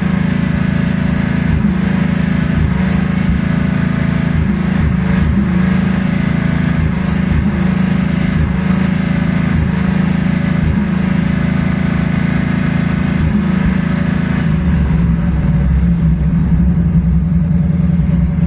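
1984 Ford Mustang's 5.0-litre V8 running with an uneven stumble, the beat breaking about once a second. It is misfiring because of a failing primary (12-volt) ignition circuit, with the distributor pick-up coil going bad.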